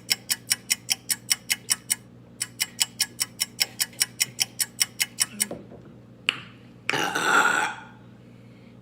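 Fast, even ticking like a clock, about six ticks a second, pausing briefly about two seconds in and stopping after about five and a half seconds. Then comes one loud burp, about a second long, from a person who has just drunk Pepsi.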